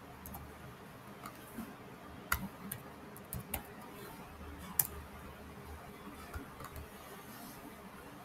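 Faint computer mouse clicks and keyboard keystrokes: a few sharp single clicks spread out, with a louder one about two seconds in and another near five seconds.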